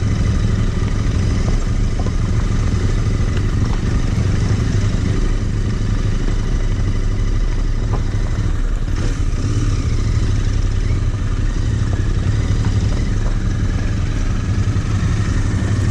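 Royal Enfield Interceptor 650's parallel-twin engine running steadily while riding, at an even, loud level throughout.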